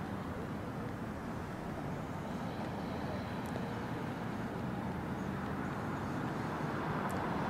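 Steady hum of distant road traffic, with no distinct events.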